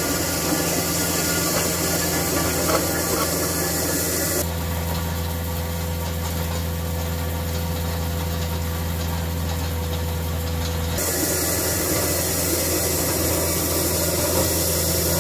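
CAT 259D3 compact track loader's diesel engine running steadily under load while its hydraulic power rake drum churns and grinds through the gravel. In the middle the sound turns duller, with a steady hum, then returns.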